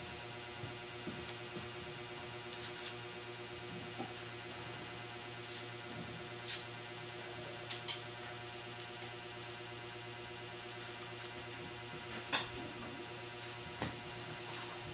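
Chef's knife slicing a red onion on a plastic cutting board: irregular light taps and clicks of the blade on the board, a couple of sharper knocks about six and twelve seconds in. A steady hum runs underneath.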